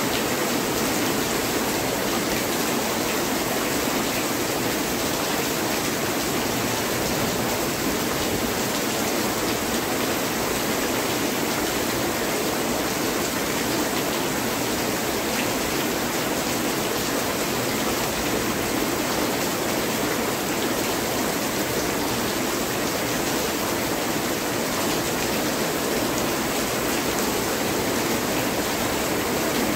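Heavy rain falling steadily: a continuous, even hiss of downpour with no breaks.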